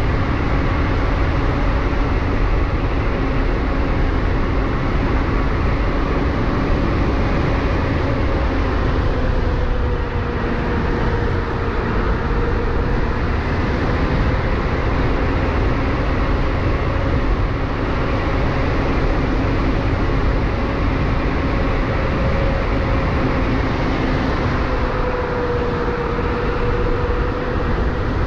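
Electric bike's QS 273 hub motor whining steadily while riding, its pitch sagging and rising a little with speed, over a heavy rumble of wind and road noise.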